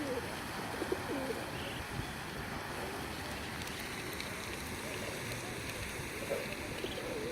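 Steady running-water noise, with a few short soft duck calls about a second in and again near the end.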